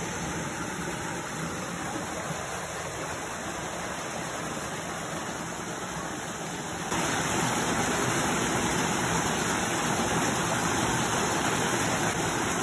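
Rain-swollen creek water rushing steadily, a continuous hiss; about seven seconds in it becomes suddenly louder and brighter.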